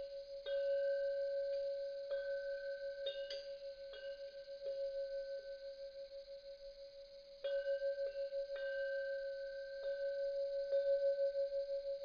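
A deep-toned bell chime struck again and again at uneven intervals, about a dozen strikes, one low note ringing on between them with a quick, even waver in its loudness.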